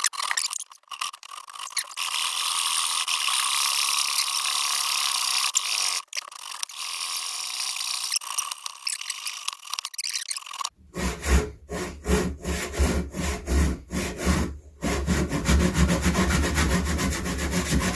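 Hand saw cutting through a piece of scrap wood held in a vise, rasping back and forth. Past the middle the sound changes to distinct, rhythmic strokes with a deeper, heavier tone.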